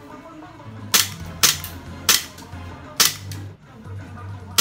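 Airsoft pistol firing four sharp shots over about two seconds, then a pause.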